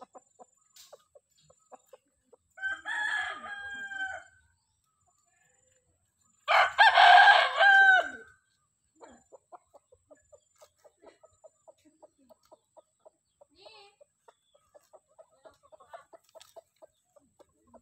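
A rooster crowing twice, a quieter crow about two and a half seconds in and a louder one about six and a half seconds in. A long run of faint short sounds follows, about four a second.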